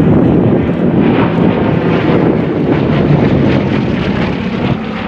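Aeroplane flying past, its engines loud and steady, easing slightly near the end.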